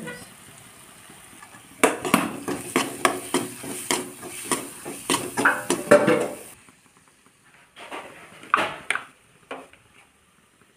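Stainless slotted spatula and spoon scraping and clanking against a wok while stirring a thick curry masala: a quick run of metal-on-metal clatter and scrapes lasting about four seconds, then a few lighter knocks near the end.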